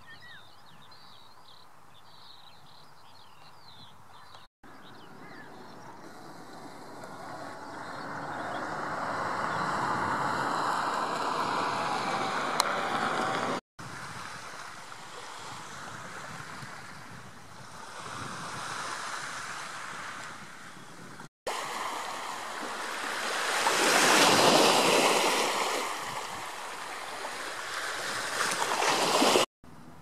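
Small sea waves washing onto a rocky shore, the noise swelling and ebbing over several seconds at a time, with three brief dropouts.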